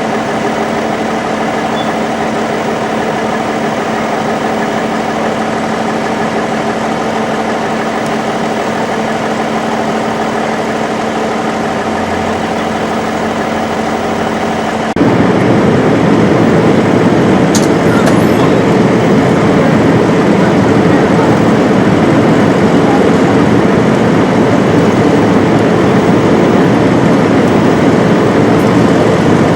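A vehicle engine idling with a steady hum of even tones. About halfway through, the sound jumps abruptly to a louder, rougher engine rumble that holds steady.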